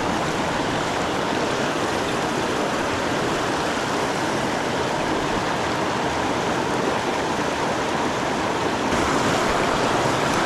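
Steady rush of a small mountain creek's fast white water over rocks, growing a little louder about nine seconds in.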